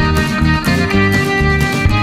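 Background music: a fiddle melody with long held notes over strummed guitar and a steady bass beat.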